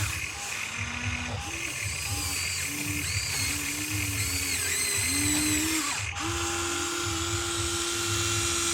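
Small electric motors of radio-controlled construction models whining in short runs, their pitch rising and falling as they start and stop, then one longer steady run in the last few seconds.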